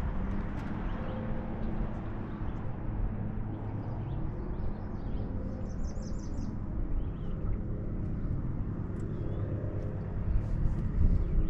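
Steady low outdoor rumble with a faint even hum, and small birds chirping a few quick high notes about halfway through.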